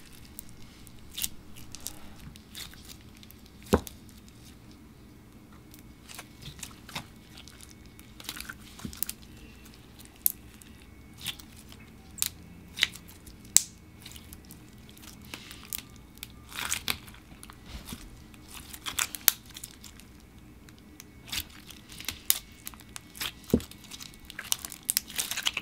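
Elmer's Neon Wonderland clear slime with small rainbow beads being poked, pressed and squeezed by hand, giving irregular small clicks and crackling pops as air pockets in the slime burst.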